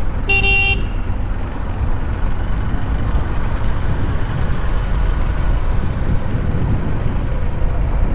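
Motorcycle on the move in traffic: a steady low rumble of wind on the microphone mixed with engine and road noise, with a short single horn beep about half a second in.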